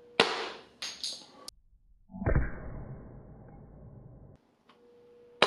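Electrolytic capacitors, overvolted far beyond their 10-volt rating, bursting as the propellant in a tube barrel. A sharp bang about a quarter second in is followed by a second of rattling. A duller, deeper bang comes about two seconds in, and another sharp bang comes right at the end.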